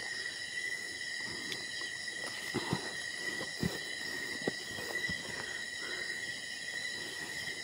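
Night insects trilling in a steady, unbroken high chorus, with scattered soft footsteps and rustles on leaf litter along a forest path.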